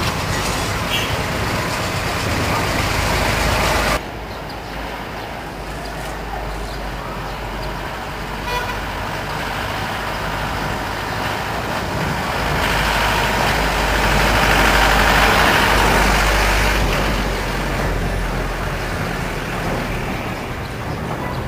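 Village street traffic: a small light truck's engine running as it drives past over the road, the sound swelling to its loudest about two-thirds of the way through.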